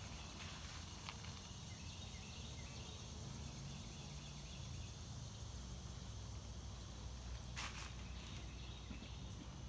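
Outdoor creekside ambience: a steady low rumble under a faint, even high hiss of insects. A single sharp click sounds about seven and a half seconds in.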